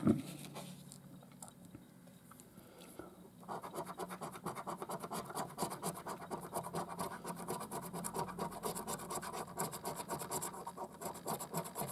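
A coin scratching the coating off a paper scratch card in rapid, repeated strokes. It is faint for the first few seconds and gets louder and steady from about three and a half seconds in, stopping just before the end.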